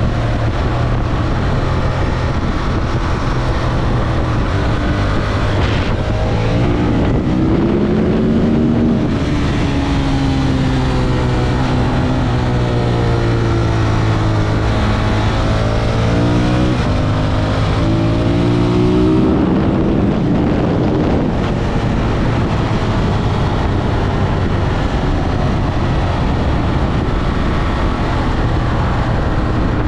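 Ducati Monster 1200 S's 1198 cc Testastretta L-twin engine running under way on the road. Between about 7 and 20 seconds in, its note rises and falls in pitch as the throttle is worked; otherwise it holds fairly steady.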